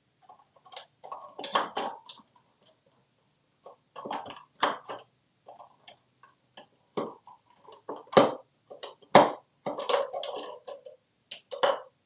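Plastic toy cups and toy vegetables clattering and knocking on a countertop as an African grey parrot plays with them: irregular clacks and rattles, the loudest two knocks about a second apart two-thirds of the way in.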